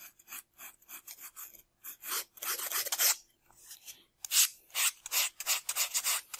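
Sandpaper on a sanding block rubbing along the edges of a foam-plastic model's tail fin in repeated short strokes, faint at first, louder from about two seconds in, then a quicker run of strokes in the second half.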